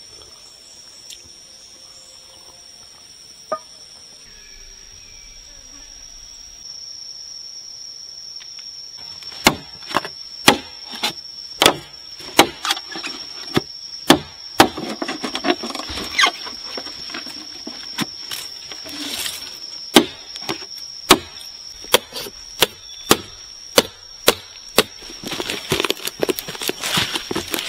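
Green bamboo being chopped with a blade: sharp, irregular strokes, about one or two a second, that begin about a third of the way in, with rustling of dry leaves near the end. A steady high insect drone runs underneath.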